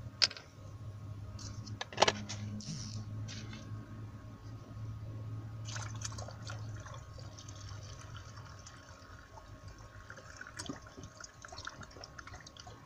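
Hot noodle water draining from an upturned bowl through a funnel into a plastic bottle, gurgling and bubbling back up because the funnel is held down so tight that no air can get out. Two sharp knocks, just after the start and about two seconds in, over a steady low hum.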